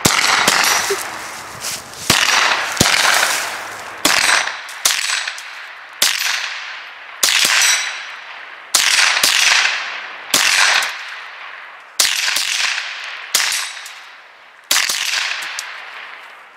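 Two .22 rimfire rifles firing more than a dozen shots at an irregular pace, some almost together. Each crack trails off in a long echo.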